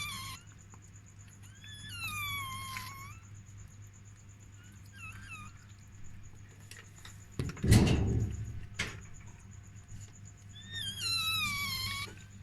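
Newborn chihuahua puppy squealing: high-pitched cries that slide downward in pitch, three times, the middle one faint. About halfway through there is a loud bump and rustle.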